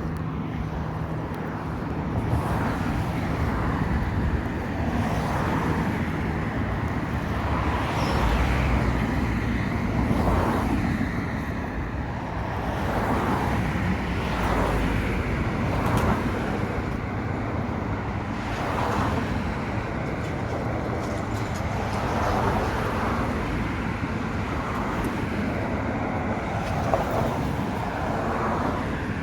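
Steady road traffic noise, with vehicles going by every few seconds.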